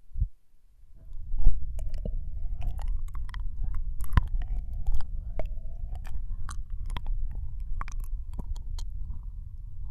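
Binaural ASMR ear licking into the right ear: close, wet mouth clicks and smacks, many per second, over a low rumble. A short low thump comes just at the start.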